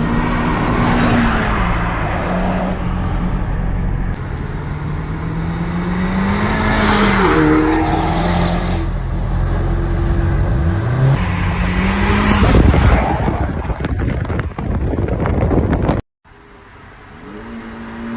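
Honda Civic Type R FK8's turbocharged four-cylinder engine heard through its exhaust, its note rising and falling in pitch as it is revved. The sound comes in several spliced clips with abrupt cuts, one of them a brief dropout.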